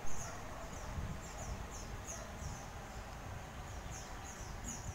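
A bird calling in the trees, a rapid series of short, high, falling chirps, about two to three a second, over a low rumble.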